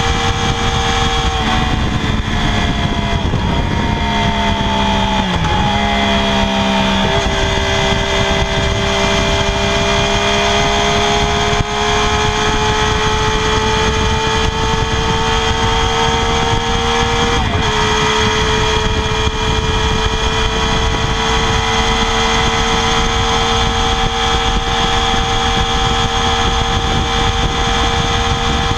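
Stock exhaust of a 2016 Triumph Daytona 675R's 675 cc inline three-cylinder engine, held at a steady high rpm. Its pitch dips a few seconds in, creeps back up, then steps up suddenly about 17 seconds in.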